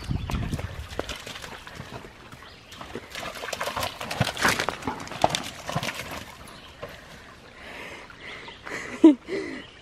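Golden retriever splashing and scrambling through a shallow, rocky creek: a busy patter of water splashes and paws knocking on wet stones, thickest in the middle. Two brief vocal sounds just after nine seconds, the first the loudest moment.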